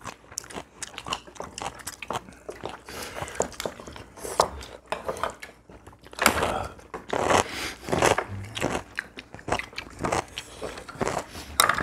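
Several people eating together: chewing and biting, with small clicks of chopsticks and spoons against bowls scattered throughout.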